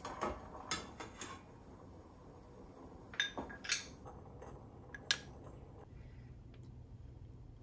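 Dishes and kitchen utensils being handled: a handful of sharp clinks and knocks, the loudest about three and five seconds in, over a faint steady hum.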